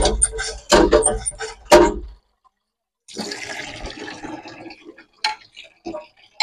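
Water from a hand pump's spout splashing in spurts into a steel mug and a plastic tub, stopping suddenly about two seconds in. After a short gap comes a brief run of pouring or splashing water, then a few clinks of steel vessels near the end.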